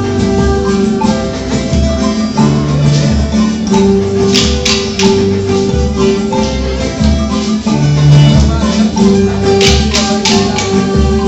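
Music: instruments playing over a steady pulse of low bass notes, with bright, sharp percussion strikes.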